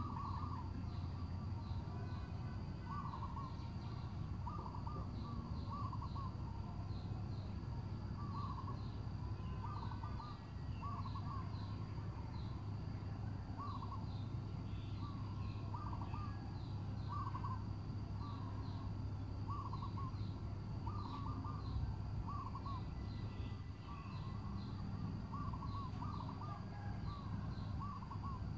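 Birds calling: short calls repeated in little clusters every second or so, over a steady low rumble.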